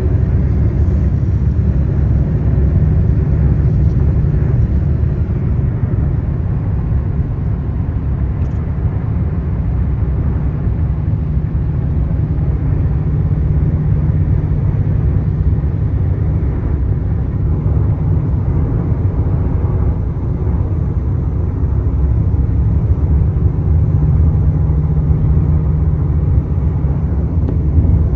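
Cabin noise inside a moving Nissan car: a steady low rumble of tyres on the road and the engine.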